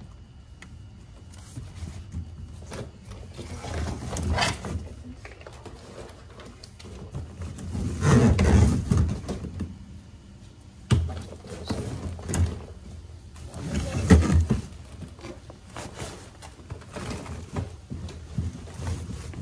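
Rummaging through a large plastic deck storage box: items being shifted and pulled about, with rustling and irregular knocks and thumps, several louder ones around the middle.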